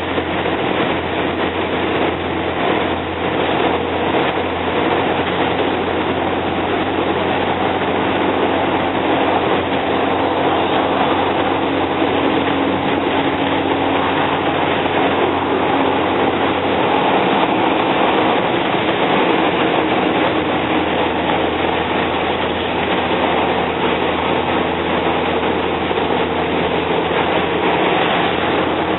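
Cummins L10 diesel engine and running gear of a Volvo Olympian double-decker bus heard from on board while it drives, a steady mechanical drone. The low hum drops away a little past halfway.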